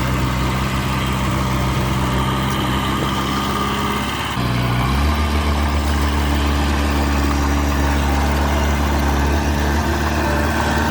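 Bulldozer's diesel engine running steadily, then rising in pitch and getting a little louder about four and a half seconds in as it is throttled up, holding there afterwards.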